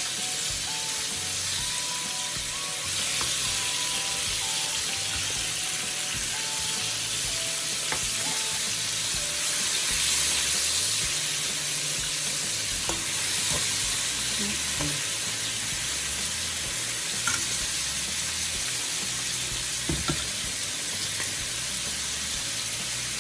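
Pork belly frying in hot fat in a pan: a steady sizzle, with a few light clicks as a fork turns the pieces.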